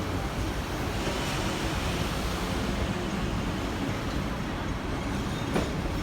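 Hong Kong double-decker electric tram running along its tracks: a steady rumbling ride noise, with a single sharp click near the end.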